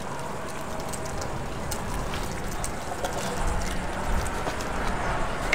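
Outdoor ambience with wind rumbling on the microphone, gusting harder in the second half, over a steady hiss.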